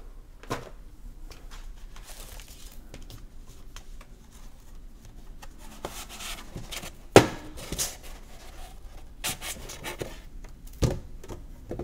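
Folded cardboard game board being handled and unfolded: rustling and scraping with several sharp knocks as the panels flap open, the loudest about seven seconds in.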